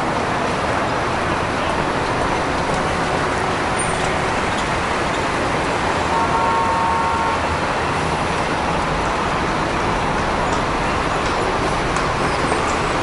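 Steady city street traffic noise from passing cars and buses, with a brief high-pitched tone about six seconds in that lasts about a second and a half.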